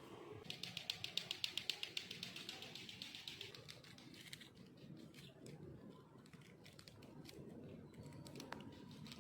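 A rapid run of light, sharp ticks or taps, about ten a second for some four seconds, followed by a few scattered clicks.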